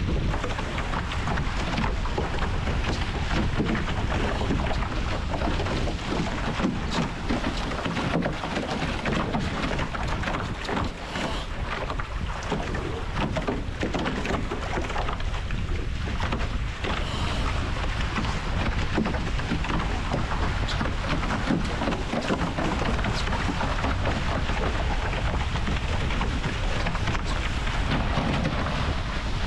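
Wind buffeting the microphone and water rushing and splashing along the hulls of an A-Class catamaran sailing at speed, with frequent small splashes of spray.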